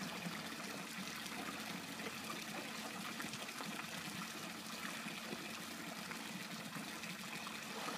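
Three wall-mounted water spouts pouring into a swimming pool: a steady splashing trickle of falling water.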